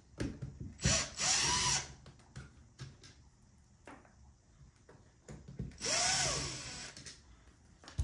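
Cordless drill/driver running in two short runs, each about a second long, its motor pitch rising and then falling as it backs screws out. Small clicks and handling knocks come in between.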